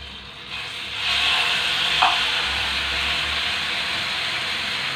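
Chicken pieces sizzling in hot melted butter in a non-stick frying pan; the sizzle swells about a second in as the pieces go in and then holds steady. A short knock about two seconds in.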